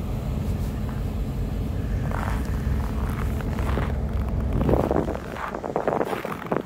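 A low, steady engine rumble that dies away about five seconds in, with irregular crunching or rustling sounds on top.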